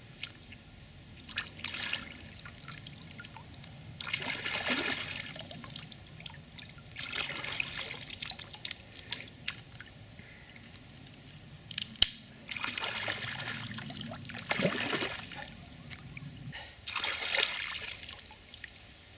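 Stream water splashing and trickling as comfrey roots are swished and rinsed by hand, coming in several splashy bursts of a second or two with small clicks between.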